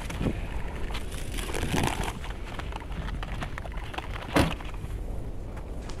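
Wind buffeting the microphone while a wooden pigeon cage is handled, with rustles and scattered clicks, and one sharp knock a little over four seconds in.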